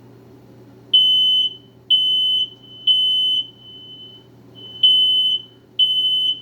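Smoke/fire alarm sounding its loud, high-pitched beeps: three about a second apart, a short pause, then two more. It is a false alarm: there is no smoke, and the tenant blames bugs getting into the electrical wiring.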